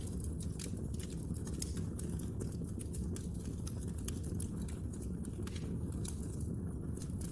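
Wood logs burning in a fireplace, crackling and popping with many sharp, irregular clicks over a steady low rumble of the flames.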